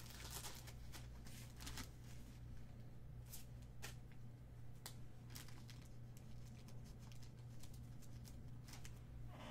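Faint rustling and scattered short ticks of trading cards being handled, over a steady low electrical hum.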